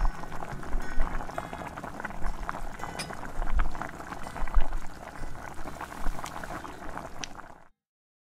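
Chicken and coconut milk stew boiling in a frying pan: a dense, steady crackle of popping bubbles. It cuts off abruptly shortly before the end.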